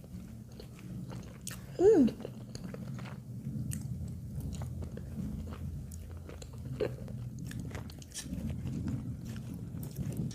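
Close-up chewing of moon cake, with soft wet mouth clicks and smacks, over a steady low hum. About two seconds in comes a brief, louder falling vocal sound.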